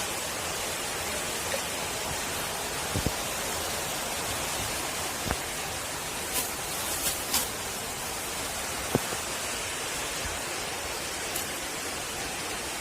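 Steady hiss of high-pressure water spraying from a LAKONI Laguna 70 jet cleaner, with a few faint clicks scattered through it; the spray cuts off suddenly at the end.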